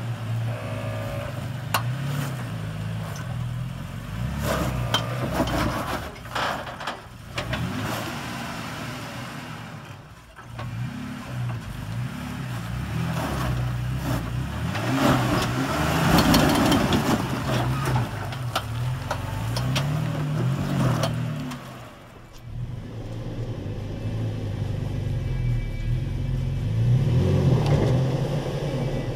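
Toyota Tacoma V6 engine revving up and down, again and again, as the truck crawls a rock ledge in stock low range. The gearing is too tall for the climb, so the engine must be revved toward 4,000 RPM with the clutch slipped. Sharp knocks, a few seconds in, come from the tyres and truck working over the rock.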